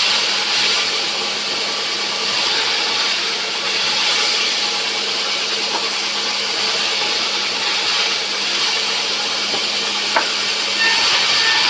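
Sawmill saw running and cutting through a rubber wood log: a steady, loud hiss of the blade in the wood over a constant motor hum, swelling and easing a little. A single sharp knock about ten seconds in.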